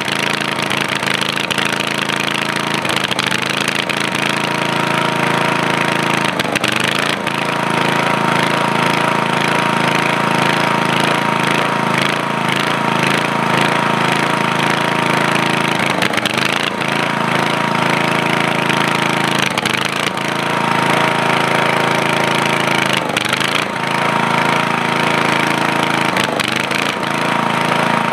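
Briggs & Stratton engine of a portable generator running under load from a plugged-in hair dryer, whose motor whine follows the engine. The engine speed sags and recovers every few seconds, so the whine dips with it: it is running unevenly, its carburetor still in need of tuning.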